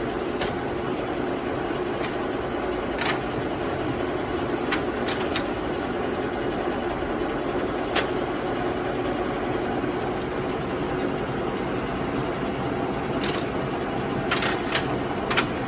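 Cincinnati No.5 horizontal milling machine running with its table under power feed: a steady, pretty quiet hum with one low steady tone. A handful of short sharp clicks are scattered through it.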